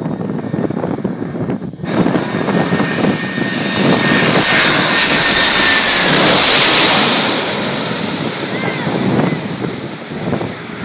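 Boeing 747's four turbofan engines passing low overhead on final approach: a faint high fan whine swells suddenly about two seconds in into a loud jet roar with a steady high whine, loudest about four to seven seconds in, then fades as the airliner moves off toward the runway.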